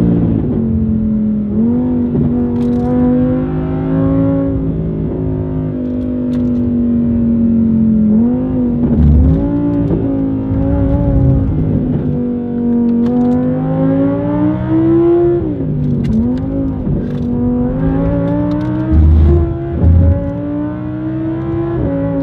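Audi R8's 5.2-litre V10 with an ASG aftermarket valve exhaust, heard from inside the cabin under hard track driving: the engine revs climb and then drop sharply at each gear change, several times over. A few deep thumps stand out, the loudest a pair near the end.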